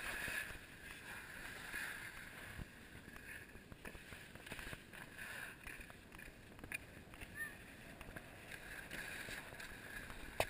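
Skis sliding on packed snow: a steady scraping hiss that swells and fades, with scattered small clicks.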